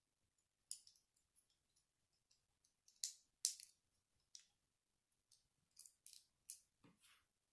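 Small Lego plastic pieces clicking and tapping together as they are handled and fitted: a series of short, sharp clicks at an uneven pace, the loudest two about three seconds in.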